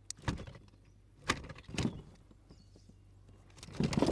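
A landed bass flopping on a plastic fish-measuring board in a kayak, giving separate knocks and thumps: one near the start, two in the middle, and a cluster near the end.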